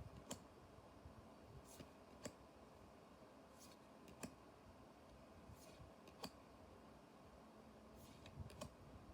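Trading cards being handled one at a time: a faint sharp click about every two seconds as each card is flipped or set down, with soft sliding swishes between, over a low steady fan hiss.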